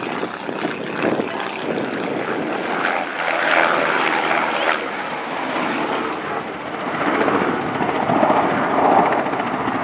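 A Sikorsky S-92 search-and-rescue helicopter flying a display: its rotor and turbine engines make a steady, dense noise that grows louder from about seven seconds in as it passes.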